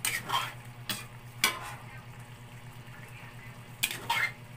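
Metal spoon stirring chicken afritada in an aluminium wok, scraping and knocking against the pan about six times, over the sizzle of the simmering tomato sauce and a steady low hum.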